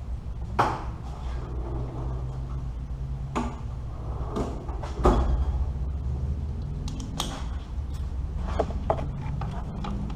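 Scattered metallic clanks and knocks of hand tools and parts, working on an engine bay, over a steady low hum. There are about seven separate knocks, the loudest about halfway through.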